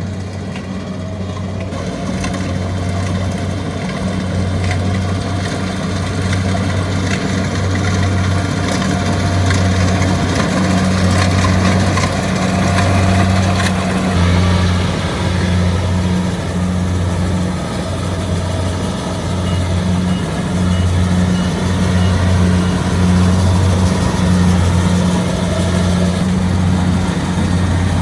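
Kubota combine harvester running as it works in a rice field: a steady, loud diesel drone with a low, pulsing hum, growing louder over the first several seconds and then holding.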